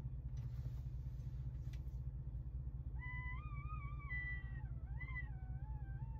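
A tube-style duck call blown by mouth, giving a whistle-like tone rather than a quack. The tone starts about halfway through, wavers up and down for about three seconds and drops lower near the end, over a steady low hum.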